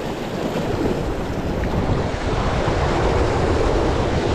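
Sea surf washing against a rocky shore, with wind rumbling on the microphone; the rush swells slowly louder.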